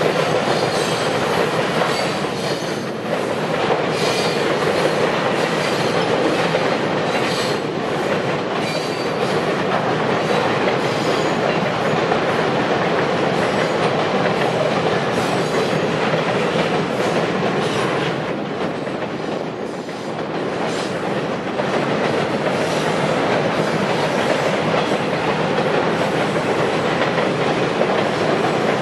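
Freight cars, tank cars and autoracks, rolling across a steel girder railway bridge: a steady, loud noise of wheels running on the rails, with faint high wheel squeals coming and going.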